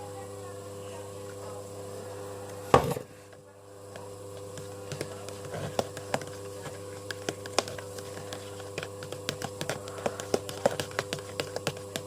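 A fork clicking and tapping against a bowl while stirring a thick mixture, in quick irregular clicks from about five seconds in, after one loud knock near three seconds. A steady electrical hum runs underneath.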